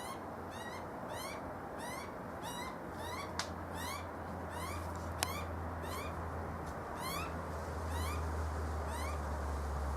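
A hungry fledgling bird begging for food: short rising calls repeated a little under twice a second.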